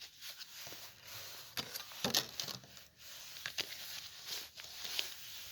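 Tarot cards being handled: scattered soft clicks and short rustles of card on card.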